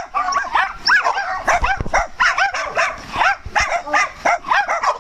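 Small dogs yipping and barking at play, a rapid run of short high yaps, several a second, without a break.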